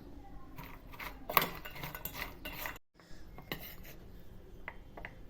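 A metal spoon clinking and scraping against a bowl as the fried pasta chat is tossed and mixed, busiest in the first half, cutting out briefly near the middle, then a few lighter clinks near the end.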